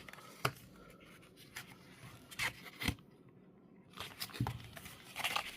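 Hands working at product packaging to pry part of it open: a few sharp clicks and short scrapes and rustles, with quiet gaps between them.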